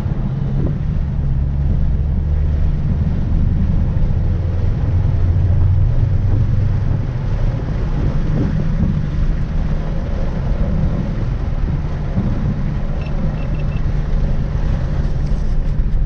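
Supercharged 6.2-litre Hemi V8 of a 2016 Dodge Challenger SRT Hellcat running steadily at low speed, not under hard acceleration, heard from inside the cabin along with tyre and wind noise.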